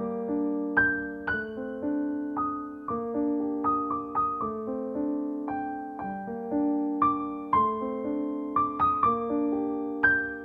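Background piano music: single notes and chords struck about twice a second, each fading away.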